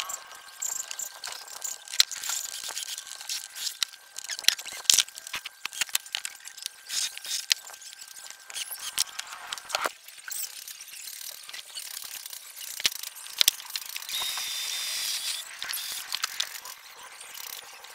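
Sharp clicks and knocks with squeaks from black plastic brackets being pressed onto painted plywood shoe-rack panels and the panels being handled.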